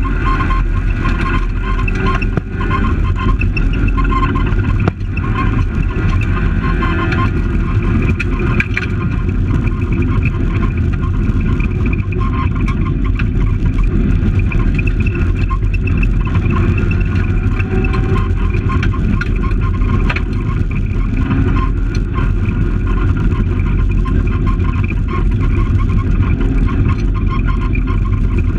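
Fiat Palio rally car's engine heard from inside the cabin, running hard under load through the gears on a gravel stage, with the rumble of tyres and loose stones on the road. Brief dips in the engine sound about two and a half and five seconds in.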